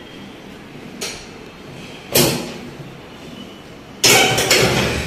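Sounds of a man bench-pressing a 100 kg barbell: a sharp, loud burst about two seconds in that fades quickly, and a longer, louder burst lasting about a second near the end, from the lifter's effort and the loaded bar.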